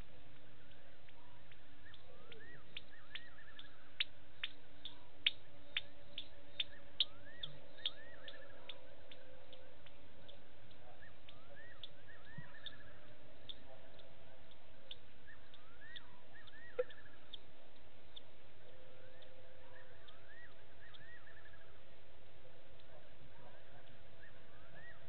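Night chorus of small wild animal calls at a waterhole: short rising-and-falling chirps repeating every second or two, with a quick run of sharp clicks a few seconds in that thins out by the middle, over a steady hiss.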